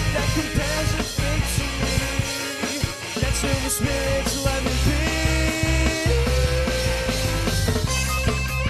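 Rock band playing a song with electric guitars, bass and drums: sustained guitar notes over repeated drum and cymbal hits.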